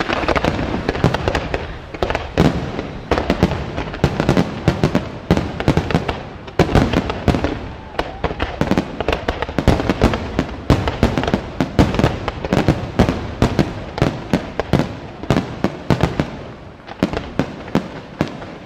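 Fireworks display: a dense, rapid barrage of bangs from shells and rising comets, many reports a second, easing slightly near the end.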